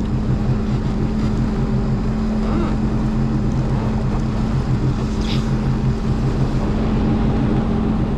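Sea-Doo GTR 230 personal watercraft's three-cylinder supercharged engine running at a steady low speed, a constant droning hum.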